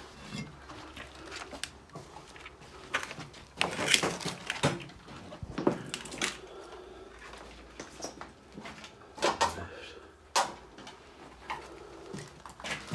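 Footsteps and scuffs over a debris-strewn floor, with irregular knocks and scrapes. The loudest knocks come about four seconds in and again around ten seconds in.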